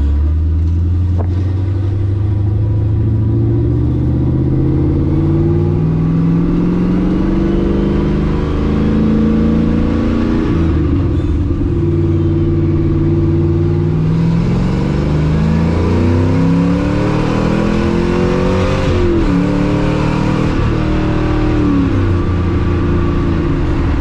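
LS-swapped car's V8 engine pulling through the gears of a manual gearbox, heard from inside the cabin. The engine pitch climbs under acceleration and drops back at each upshift, several times, with a stretch of steady cruising in between.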